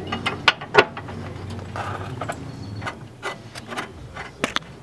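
Metal suspension parts, aluminium angle-kit pieces and bolts, clinking and knocking as they are handled and fitted by hand: a string of sharp clicks, the loudest two about half a second and just under a second in, and two more near the end.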